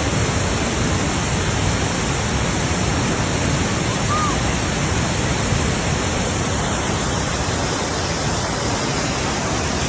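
Waterfall cascades pouring, a loud, steady, unbroken rush of water.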